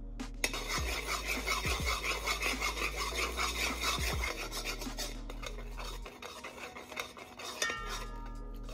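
Metal spoon scraping round the bottom of a metal pot in quick, rhythmic strokes, stirring sugar as it browns in oil. The scraping eases off about five seconds in.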